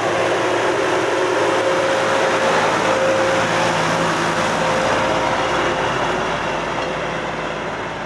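Deutz-Fahr 5070 D tractor engine running steadily under load while ploughing, with a steady whine over the engine noise. It grows fainter over the last couple of seconds.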